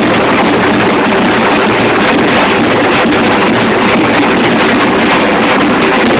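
Ensemble of Azerbaijani nagara drums played together at full volume, a fast dense rhythm whose strokes merge into one continuous wash of sound.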